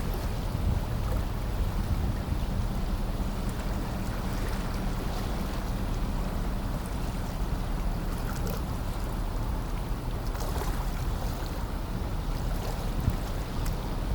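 Steady low rumble of a car ferry's engines as it comes into port, with wind buffeting the microphone.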